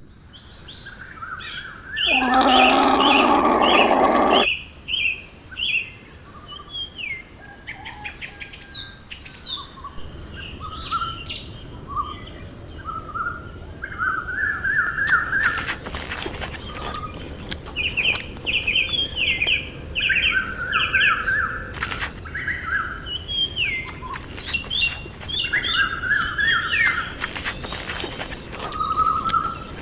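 Small birds chirping throughout in quick series of short, repeated notes. About two seconds in, a louder dense sound lasts roughly two seconds, over a steady high hiss.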